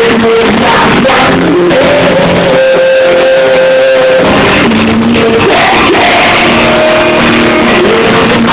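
Live pop-rock band playing loud, with guitars and a sung melody.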